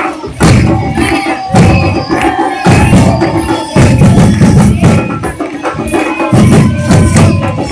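Carnival batucada drum ensemble playing: deep bass drums come in as loud phrases about once a second, with sharp snare and high drum strokes rattling over them.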